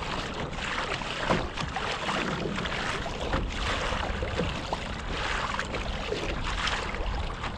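Sea water splashing and lapping against the plastic hull of a Hobie Passport 10.5 kayak as it moves through light chop, in irregular splashes, with wind rumbling on the microphone.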